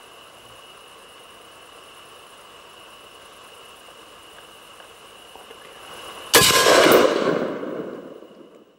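A single hunting-rifle shot about six seconds in, its echo rolling away over about two seconds: the shot that drops the wild boar.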